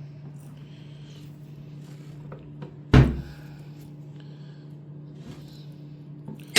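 Hand tools and metal parts handled during a bench vise teardown: two loud knocks about three and a half seconds apart, with a few small clicks between them, over a steady low hum.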